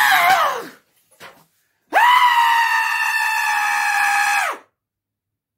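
A man screaming: a short shout falling in pitch at the start, then one long scream held at a steady pitch for nearly three seconds that cuts off abruptly.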